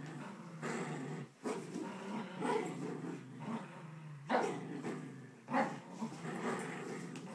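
Two poodles growling continuously as they tug a blanket between them in play, with a few sharper, louder outbursts, the loudest about four and five and a half seconds in.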